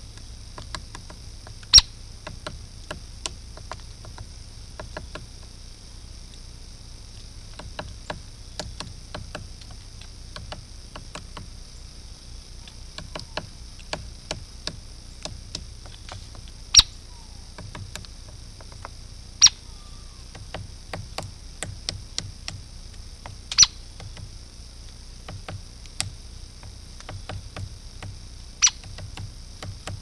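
Hairy woodpecker stripping bark to get at insects: a run of irregular small taps and clicks from its bill on the bark, with a handful of much louder single strikes, over a steady hiss.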